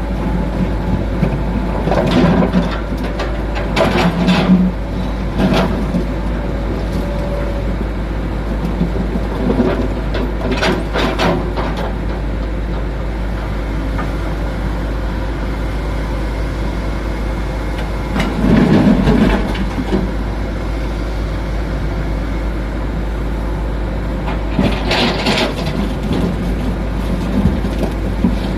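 Komatsu PC200-7 hydraulic excavator's diesel engine running steadily, with several knocks and clatters as it works. The loudest burst comes about two-thirds of the way through.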